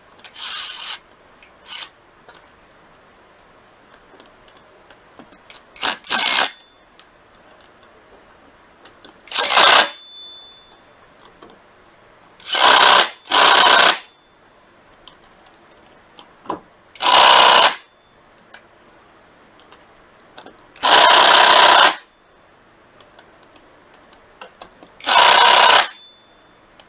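Electric power driver running in about eight short bursts, each half a second to a second long, as it runs threadlocker-coated bolts into a scooter's engine cover.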